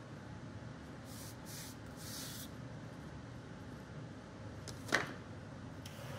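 Wooden tongue-and-groove planks being handled on a workbench: faint sliding and rubbing of wood on wood, then one sharp wooden knock about five seconds in, over a steady low hum.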